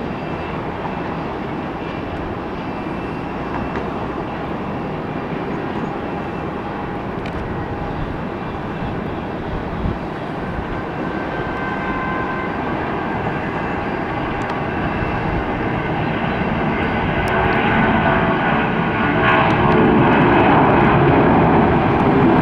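Boeing 757 jet engines at takeoff power during the takeoff roll and lift-off: a steady, rushing jet noise that grows steadily louder over the last several seconds as the airliner rotates and climbs.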